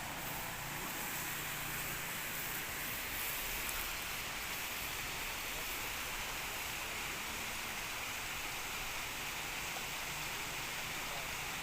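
Steady rushing of flowing river water, an even hiss that holds at one level throughout.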